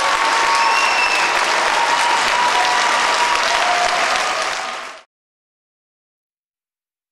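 Audience applauding, a dense steady clapping that fades and cuts off to silence about five seconds in.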